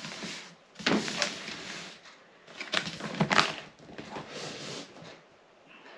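Cardboard box being handled and opened: three bursts of rubbing, scraping and knocking on cardboard.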